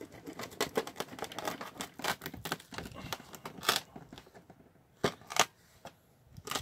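Knife cutting the fins off a gutted flounder: a dense run of crunchy cuts and scrapes for about four seconds, then a few separate sharp clicks near the end.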